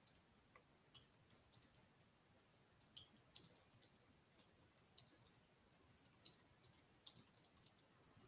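Faint, irregular clicks of typing on a computer keyboard, barely above near silence.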